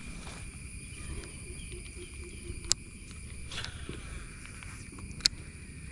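Steady high insect chirring from the paddy field, several tones held throughout over a low rumble. Two sharp clicks stand out, about two and a half seconds apart, the second near the end.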